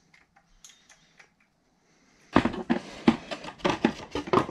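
A few faint clicks as the catch tank and its bracket are handled. About two seconds in, a dense run of loud knocks and rattles begins as the tank and bracket are pushed into place in the engine bay.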